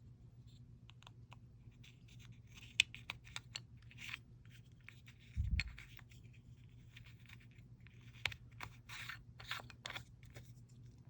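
Small jars of nail chrome powder being handled: scattered light clicks, scratches and scrapes, with one dull thump about halfway through.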